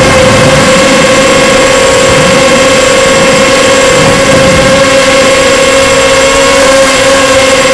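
Emax Nighthawk 250 quadcopter's brushless motors and 6x3 propellers whining loudly at a steady pitch, picked up by the onboard camera. The pitch sags slightly and recovers a couple of times as the throttle shifts.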